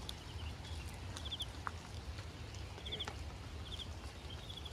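A bird repeating a short high call of three quick notes, roughly once a second, faint over a steady low wind rumble on the microphone, with scattered light ticks.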